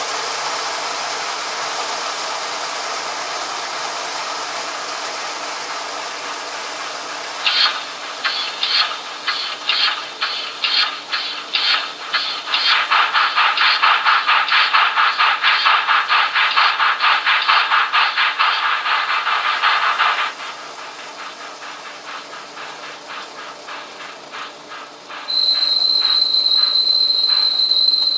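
Steam-locomotive sounds from the Trix 22941 SNCF 241 A model's mfx+ digital sound decoder, played through its small onboard speaker. A steady steam hiss gives way about a quarter of the way in to chuffing exhaust beats that quicken and grow louder, ease off about two-thirds through, and then a single steady whistle sounds near the end.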